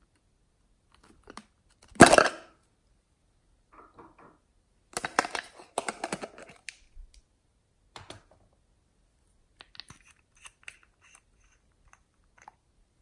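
Hands handling a plastic container and a small bottle: a loud knock about two seconds in, a burst of clattering around five to six seconds in, then light scattered clicks as the bottle's cap is twisted off.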